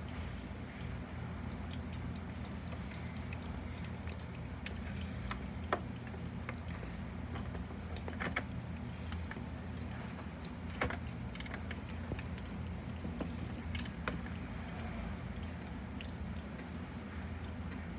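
A steady low hum with scattered small clicks and crackles as a Cardisoma carnifex land crab picks at and chews a slice of apple with its claws and mouthparts. The sharpest clicks come about six, eight and eleven seconds in.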